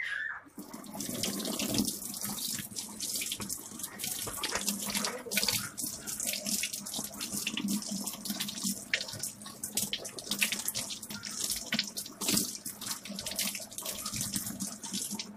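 Kitchen tap turned on about a second in, then running steadily. The water splashes over a Bluetooth speaker held in the stream and into a stainless steel sink.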